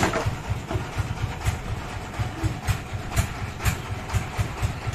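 A sawmill engine running with an even, low thumping beat of about four strokes a second, with a sharper tick roughly every half second.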